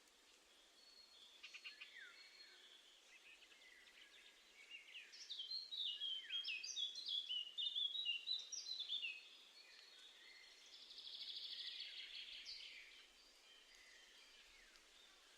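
Small songbirds chirping and calling, with a fast run of quick sliding notes a few seconds in, then a short buzzy churr around the eleventh second.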